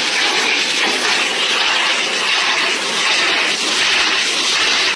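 Pet grooming dryer blowing a steady, loud rush of air at a dog.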